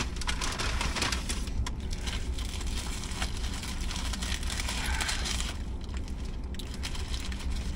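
Paper bag and burger wrapper rustling and crinkling as a Whopper is pulled from the bag and unwrapped, with many small crackles, over a steady low hum.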